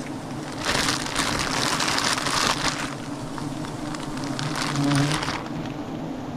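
Swarm of agitated giant honey bees buzzing in a steady low drone around a disturbed nest. Loud rustling and crunching cuts across it from about a second in to three seconds, and again briefly near five seconds.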